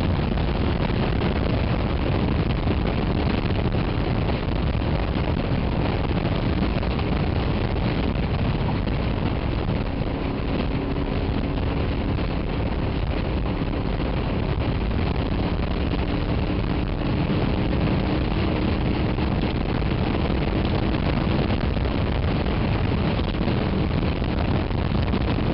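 Honda VFR motorcycle's V4 engine running steadily at highway cruising speed, under heavy wind rush on the microphone.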